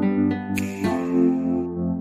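Soft instrumental background music of plucked notes that ring on, a new note or chord every half second or so.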